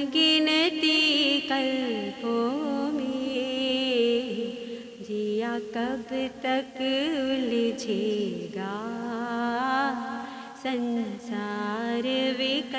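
A woman singing a Hindi devotional bhajan solo, in phrases of long held notes with a wavering vibrato and slides between pitches.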